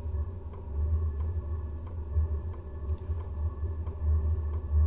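A WIPPRO 12-volt diesel heater's fuel pump ticking steadily, roughly three ticks a second, over a steady low hum. This is the start-up stage, before the heater fires and the pump becomes hard to hear.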